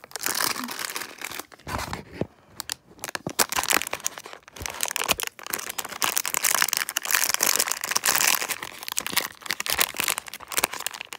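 A blind-bag mini-figure packet being crinkled and torn open by hand: a dense run of crackling and rustling with a few short pauses.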